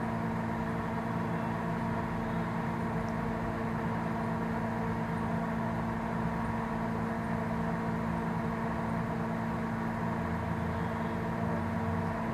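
Steady machine hum, an even drone with a low buzz that does not change.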